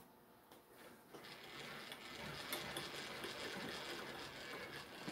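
Milling machine end mill cutting a gear tooth into a bevel gear blank held in a dividing head. A steady cutting noise with fast, fine chatter starts about a second in and builds slightly.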